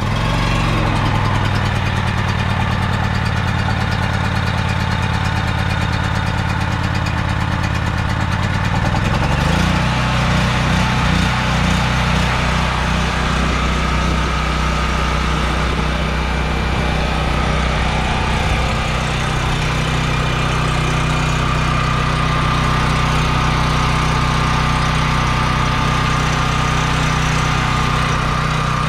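Westinghouse WGen3600v portable generator's single-cylinder engine running steadily just after a cold start with the choke on; its note shifts slightly higher about ten seconds in, then holds steady.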